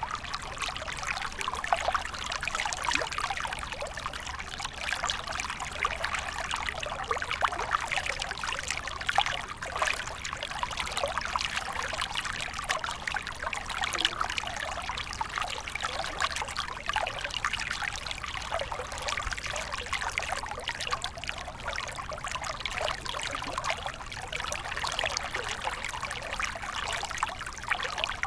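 Walang kecek (bush cricket) stridulation: a dense, continuous dry crackling rasp of rapid clicks that never pauses. These are the harsh 'tembakan kasar' calls played to songbirds as a masteran for them to copy.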